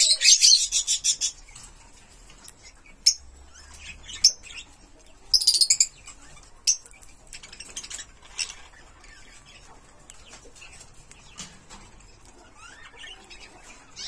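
Green-cheeked conure giving short bursts of rapid, high-pitched chirping, at the start and again about five seconds in, with a few single sharp clicks between.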